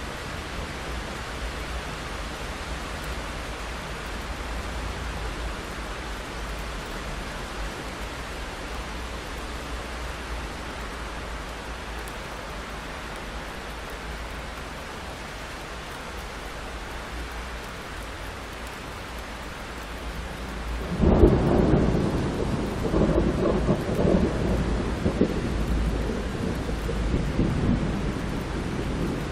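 Steady rain. About two-thirds of the way in, thunder breaks out with a sudden crack and then rolls and rumbles for several seconds over the rain.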